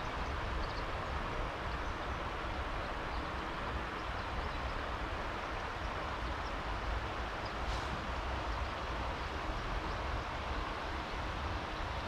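Steady rush of a flowing river, with a low rumble underneath.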